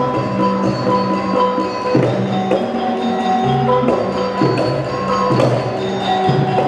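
Indonesian gamelan-style dance music: held ringing notes of struck metal mallet instruments, changing every half second or so, with a few sharp drum strokes.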